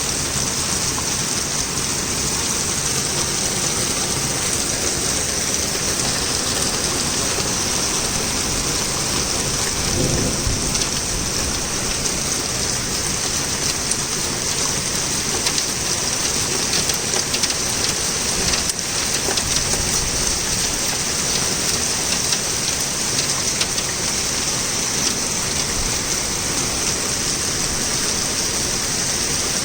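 Torrential rain falling steadily and hard, with a short low rumble of thunder about ten seconds in.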